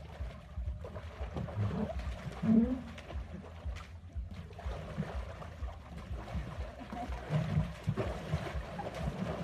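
Muddy water sloshing and splashing in a plastic paddling tub as a baby elephant wades and kicks about in it, in uneven bursts, with a splash near the end.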